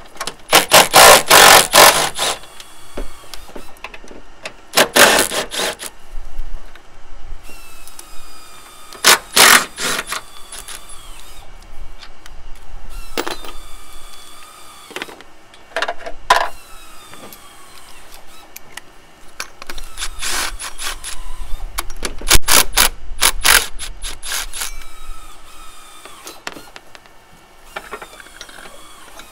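Milwaukee cordless impact wrench hammering in about seven short bursts, the longest about two seconds, with the motor whining down between them, as it loosens the Ford Focus RS engine's camshaft pulley bolts for cambelt timing.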